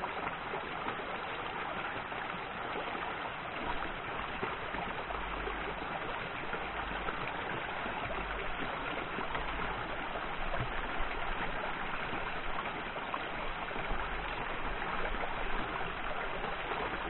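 Small rocky stream running steadily over stones, an even rush and trickle of water, with an occasional low rumble underneath.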